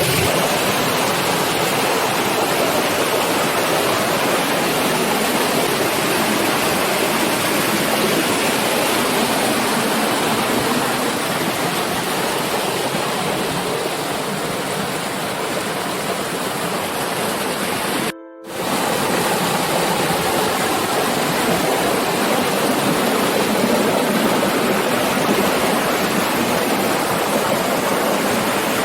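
Irrigation water rushing and splashing steadily into the field. The sound breaks off for a moment about two-thirds of the way through.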